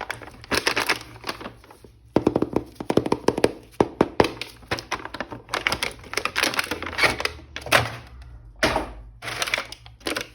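Rapid clicking, tapping and rattling of plastic toy packaging and parts being handled and opened, in bursts with short pauses.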